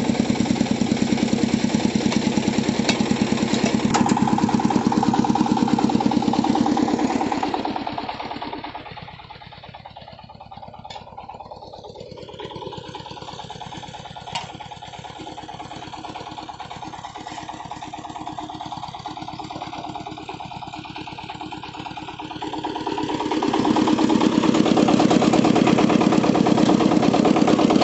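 Single-cylinder diesel engine of a công nông farm truck running steadily while it powers a chain-driven cable winch to haul the cassava-laden truck up a rocky slope. It drops to a quieter level about eight seconds in and comes back up loud about twenty-three seconds in.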